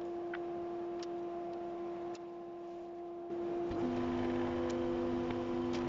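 Combination jointer-thicknesser planer running with a steady whine and a few light clicks. About three seconds in it grows louder and a second, lower tone joins as a wooden bar is fed into the thickness planer.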